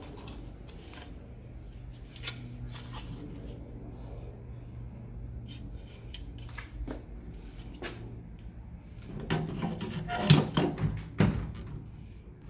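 Scattered clicks and knocks of handling, coming thicker and louder about nine to eleven seconds in, over a steady low hum.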